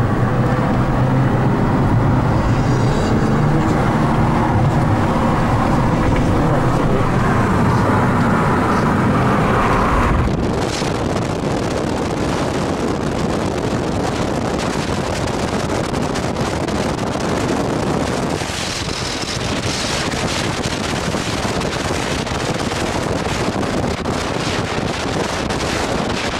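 Road and engine noise inside a moving car's cabin, a steady low drone. About ten seconds in it turns abruptly into a slightly quieter rushing wind noise on the microphone.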